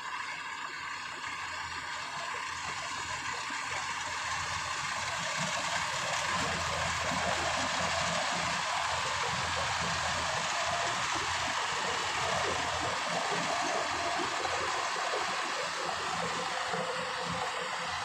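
Kubota DC-105X combine harvester running while it cuts rice, its engine and threshing machinery making a steady rushing noise. The noise grows louder as the machine comes close, peaks about halfway through as it passes, then eases a little.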